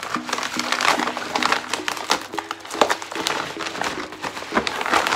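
Plastic bubble mailer crinkling and rustling in irregular crackles as it is handled and its contents are pulled out, with quiet background music.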